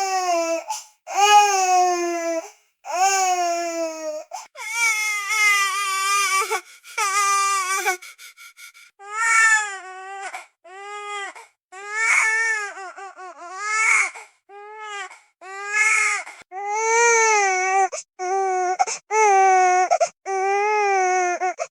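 A baby crying in a tantrum: a string of high-pitched wailing cries, each about a second long, with short catches of breath between them. Near the middle some cries come shorter and more broken.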